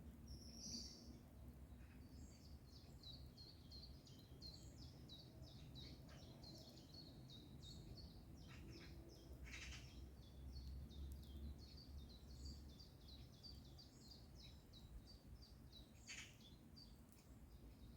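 Songbirds singing faintly, a long run of quick, high repeated notes, with two short harsher calls, about ten and sixteen seconds in. A low steady rumble lies beneath.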